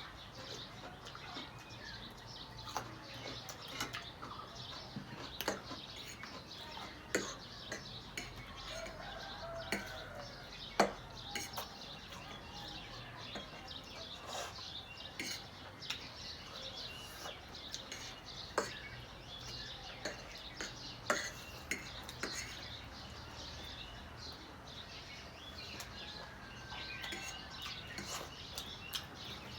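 Cutlery clicking and clinking against plates while eating, with irregular sharp taps scattered throughout. Faint bird chirps can be heard now and then in the background.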